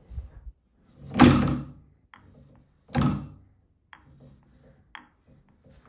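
Strands S32M drill press quill and feed mechanism being worked by hand with the motor off: two short metallic sliding clunks about two seconds apart, then a few light clicks.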